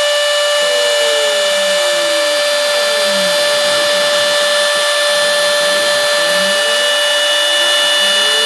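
Router spindle of a homebuilt CNC mill running with a steady high whine as its bit cuts florist foam. Beneath it, lower motor tones slide up and down several times as the machine's axes speed up and slow down.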